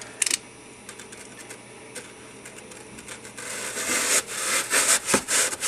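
A hobby knife sawing through a block of green scenery foam: one sharp click about a quarter second in, then from about three and a half seconds a rapid series of scratchy cutting strokes.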